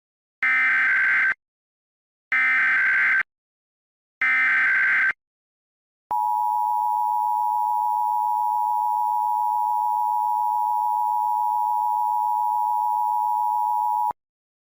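Emergency Alert System SAME header: three short screeching bursts of digital data tones about a second apart. Then the EAS attention signal follows, the steady 853/960 Hz two-tone alert tone held for about eight seconds and cut off suddenly, announcing an Amber Alert (child abduction emergency).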